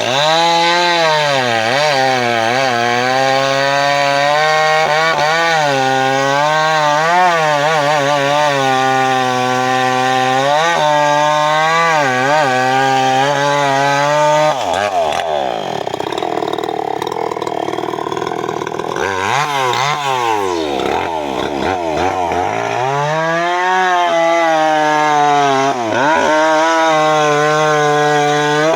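Two-stroke chainsaw cutting teak, the engine held high under load with a wavering pitch. About halfway through it drops back toward idle, then revs up again and cuts for several more seconds before falling off near the end.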